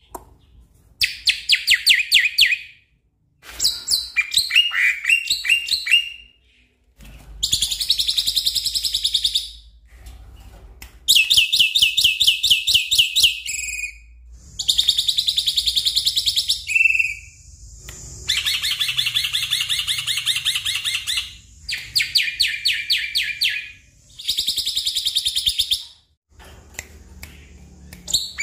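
Black-winged myna (jalak putih) singing: a string of loud, fast-rattling chattering phrases, each about two to three seconds long, separated by short pauses.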